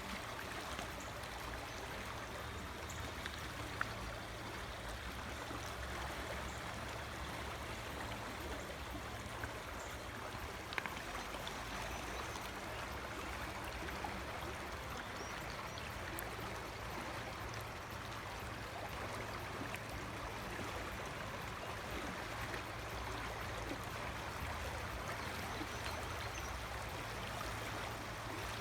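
Big Rock Creek flowing over a rocky bed: a steady, unbroken rush of rippling water. A few faint clicks stand out briefly in the first third.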